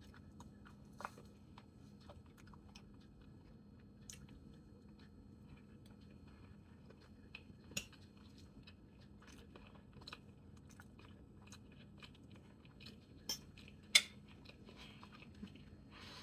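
Close-up chewing and mouth sounds of someone eating boiled yellow yam and corned beef: soft, irregular wet clicks, with a few sharper clicks, the loudest about fourteen seconds in.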